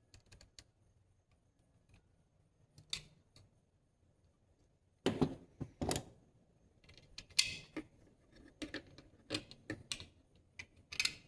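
Irregular clicks and knocks of small hard parts being handled, as dice-stand pedestals are fitted onto their pegs and their set screws tightened. The clicks are sparse at first and come thicker and louder from about halfway through.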